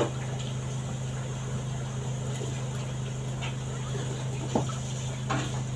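A steady low hum with no change in pitch, with a couple of faint clicks near the end.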